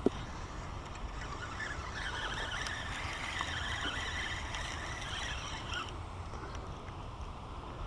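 Fishing reel being cranked to bring in a hooked white bass, a whirring that starts about a second and a half in and stops near six seconds, over a steady low rumble of wind on the microphone. A single sharp knock comes right at the start.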